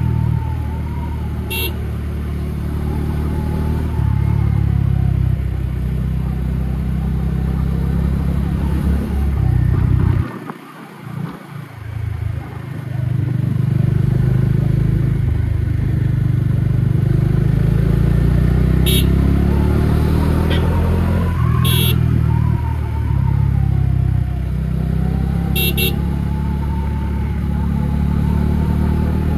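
Bajaj Dominar 400's single-cylinder engine running as the motorcycle is ridden at low speed on a winding road, its note rising and falling with the throttle. About ten seconds in the sound drops away sharply for a couple of seconds, then the engine is heard again; a few brief high-pitched blips come in over it.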